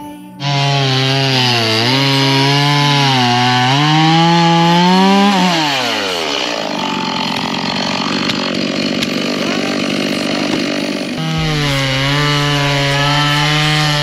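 Chainsaw running at high revs, its pitch wavering and climbing before falling away about five seconds in as it bogs into wood. A rough cutting stretch follows, then it runs at high speed again near the end.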